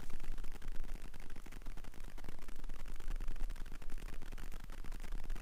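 Steady hiss with a fine crackle.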